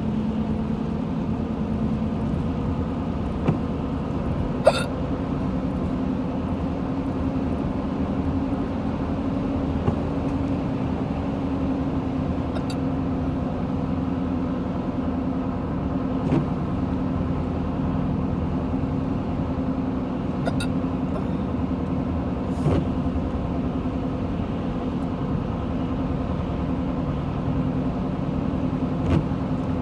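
Hiccups, short and sharp, about one every few seconds, self-induced by burping, over the steady low drone of a car being driven, heard from inside the cabin.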